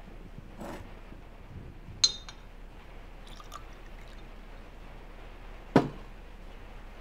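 Liquid poured from a glass bottle into a small glass, with a sharp ringing clink of glass on glass about two seconds in. A sharp knock near the end.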